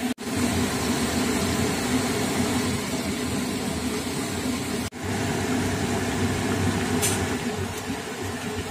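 Steady noise of food frying in a wok on a gas stove, the hiss of the flame under it, cut off for an instant twice. A brief sharp sound about seven seconds in.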